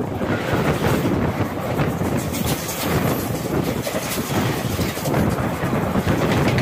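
An express train's coaches pass close by on the adjacent track while the train being filmed from also runs. The result is a steady rushing rail noise with a faint rapid clatter of wheels, and wind on the microphone.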